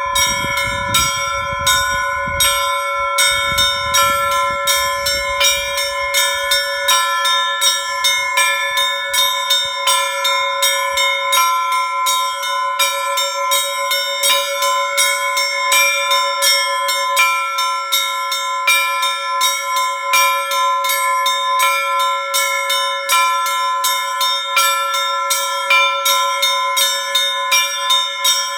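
Russian Orthodox church bells being rung in a zvon: several bells of different pitches struck by their clappers in a rapid, steady rhythm of about two strikes a second, each stroke ringing on under the next.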